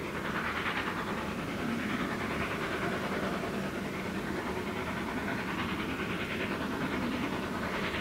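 Steam locomotive working a train, its exhaust beating in slow, uneven chuffs over the steady noise of the moving train.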